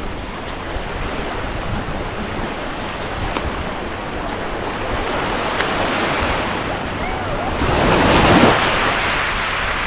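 Sea waves washing onto a sandy beach: a steady wash of surf, with one wave surging in louder through the second half, peaking about eight seconds in, then easing.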